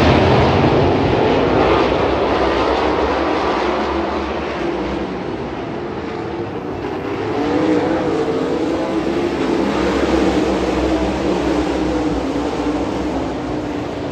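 Sprint cars' 410-cubic-inch V8 engines running hard around a dirt oval during a heat race, the sound swelling and fading as the field comes by. It is loudest at first, eases off around the middle and swells again after.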